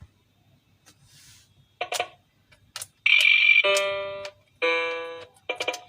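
Electronic music notes from a LeapFrog My Own Leaptop toy laptop's small speaker in its music mode, set off by pressing the letter buttons. After a near-silent start and a couple of short blips, a loud buzzy note comes about three seconds in, then two held tones, then a quick run of short notes near the end.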